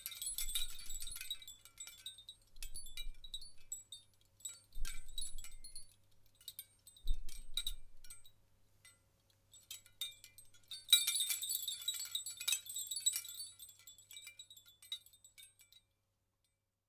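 A hanging string of handmade Indian copper bells jingling and clinking in a series of bursts, the loudest about eleven seconds in, with a couple of low knocks around five and seven seconds. The ringing stops about a second before the end.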